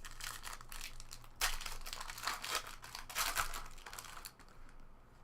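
Crinkling and tearing of a trading card pack wrapper as it is torn open and handled, starting sharply about a second and a half in and dying away near the end.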